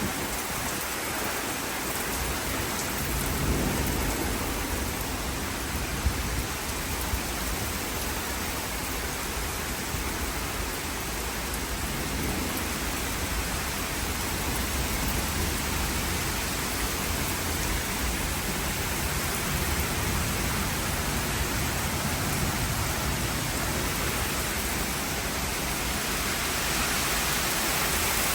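Steady rain from a thunderstorm, with low rumbles of thunder rolling in a few times.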